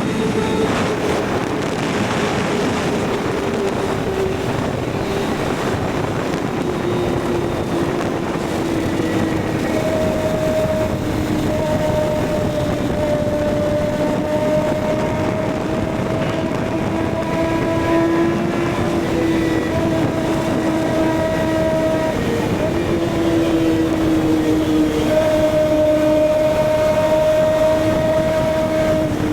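Kawasaki ZX-6R inline-four engine running at high, fairly steady revs under way, its pitch drifting slowly up and down, over a thick rush of wind and road noise.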